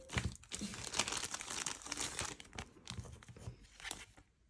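Crinkling and rustling of plastic card packaging and sleeves handled close to the microphone, busiest in the first few seconds and dying away near the end.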